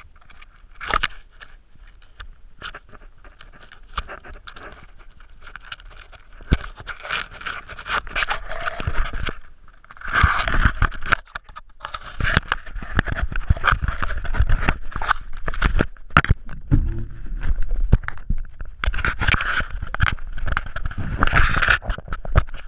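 Mountain bike rolling along a dry dirt and gravel forest trail: tyres crunching and scraping on the ground, with irregular clatters and knocks from the bike over bumps. Louder from about ten seconds in, as the pace picks up.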